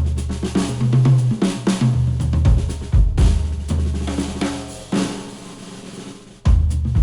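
Music with a full drum kit (kick, snare, hi-hats, cymbals) over a bass line, played through HIFIMAN HE1000 V2 planar-magnetic headphones and recorded by microphones at the earcups. The music thins out and drops in level from about five seconds in, then the full drums come back hard about six and a half seconds in.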